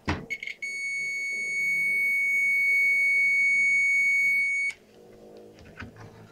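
Digital multimeter's continuity buzzer giving a short chirp as the probes touch, then a steady high beep for about four seconds that stops sharply. The beep shows continuity: the source of the TG MOSFET is connected to the drain of the BG MOSFET.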